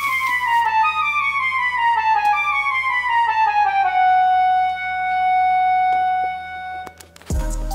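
Background music: a melody of notes stepping downward that settles on one long held note and fades out about seven seconds in. Just before the end a new passage starts with a deep bass note and a beat.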